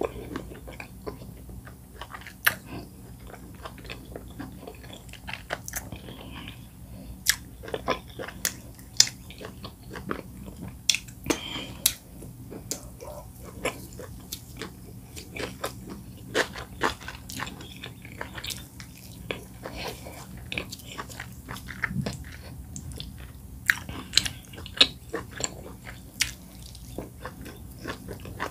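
Close-miked mouth sounds of a person chewing oat fufu and bitterleaf soup: irregular wet clicks and smacks of chewing.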